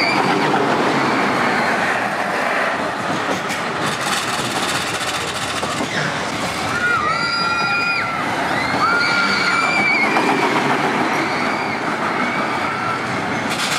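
Schwarzkopf Jet Star 3 roller coaster train running along its steel track as a steady rushing noise. High drawn-out squeals come and go over it, clearest about seven to eleven seconds in.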